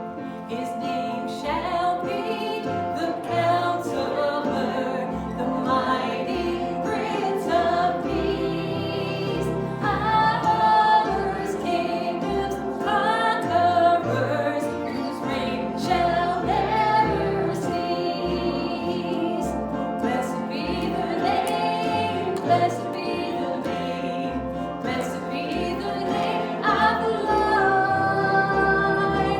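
Worship song sung by several voices with band accompaniment: a bass line and light percussion keep a steady beat under the melody.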